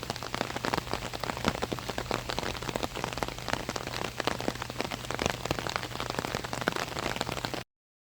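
Rain pattering on an open umbrella overhead, a dense, even drumming of drops that stops abruptly near the end.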